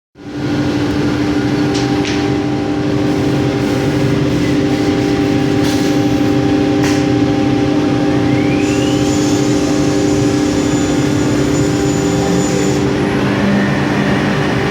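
CNC router milling a pattern into an MDF board: a steady machine hum with a few sharp clicks, and a short rising whine a little past halfway.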